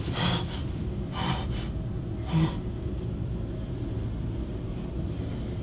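A man's short, sharp breaths or gasps, about four in the first two and a half seconds, then only a low steady hum.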